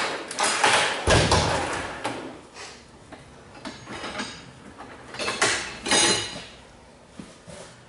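Metal clanking and scraping as a rubber skid steer track is forced back onto its wheels, with several heavy knocks: a cluster in the first two seconds and two more around five and six seconds in.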